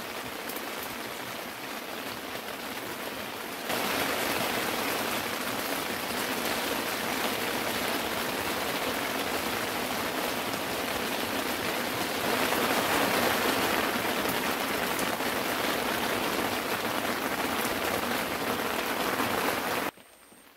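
Steady rain falling, an even hiss that gets louder about four seconds in and again around twelve seconds, then cuts off suddenly just before the end.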